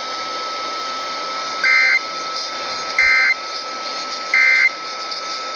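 Emergency Alert System end-of-message code (EOM, 'NNNN'): three short bursts of two-tone digital data, a little over a second apart, received over the radio with steady static and a faint steady whistle underneath. The bursts mark the end of the alert message.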